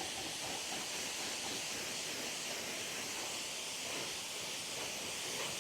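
Steady hiss of a water spray rinsing a motorcycle, with the water sheeting off the freshly spray-waxed surfaces.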